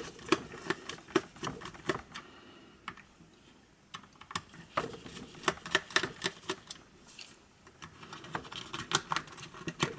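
Irregular plastic clicks and taps from JBL Tune 510BT headphone ear cups being handled and pried open with a small screwdriver, with a quieter pause about three to four seconds in.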